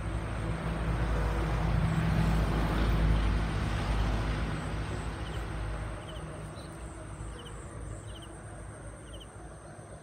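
A motor vehicle passes with a low engine hum and road noise. It grows loudest about two to three seconds in and fades away by about six seconds. After it, a faint high chirping repeats roughly every half to one second.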